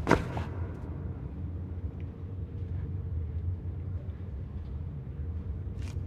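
A single thud right at the start, like a foot or hand coming down on stone, then a steady low rumbling drone of cavern ambience.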